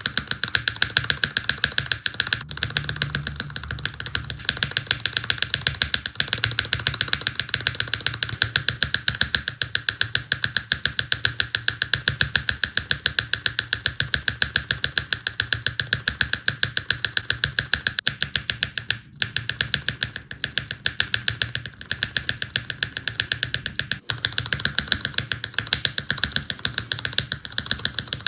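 Mechanical keyboard spacebar pressed rapidly and evenly, a steady stream of clacks, with a few short breaks where the switch under it changes. Background music plays underneath.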